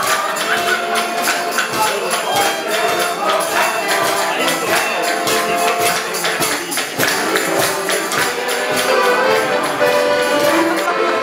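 Live folk music played on accordion and violin, with a jingling pole percussion instrument (an ozembuch) struck to keep a steady beat.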